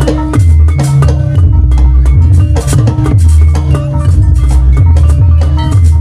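Live Janger theatre music: fast, busy drumming with many quick strikes over a low bass line that shifts pitch every half second or so.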